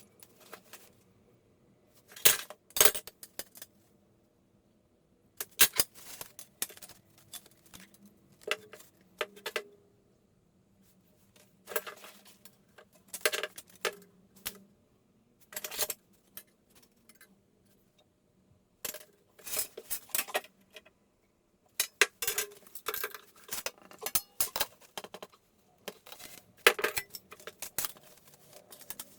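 Small metal objects, such as hand tools and pipe fittings, clinking and rattling together in short bursts every couple of seconds, with quiet gaps between.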